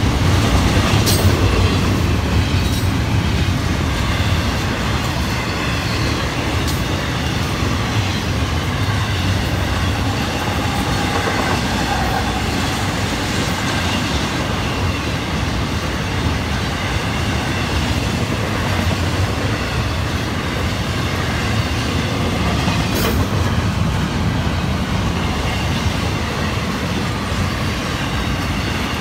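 Intermodal freight train of double-stack container and trailer well cars passing at speed: a steady rumble of steel wheels on rail. A few sharp clicks stand out, about a second in, at about three seconds and again near the end.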